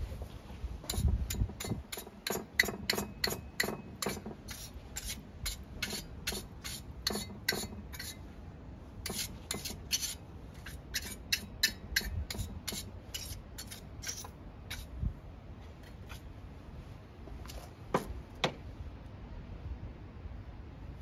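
Stiff plastic-bristled brush scrubbing dirt off the STIHL FS250 brushcutter's bare engine and cylinder fins in quick, short strokes, about two or three a second. The strokes thin out after about fourteen seconds, with two last sharp strokes near the end.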